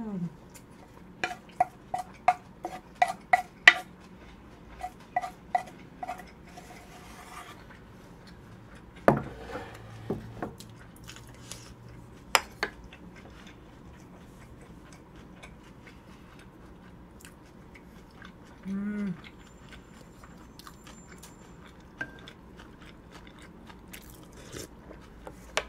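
Wooden spoon scraping and knocking against a large wooden bowl, about a dozen quick clicks in the first six seconds as the last rice is gathered. About nine seconds in the bowl is set down on the wooden table with a knock, followed by faint chewing of a full mouthful.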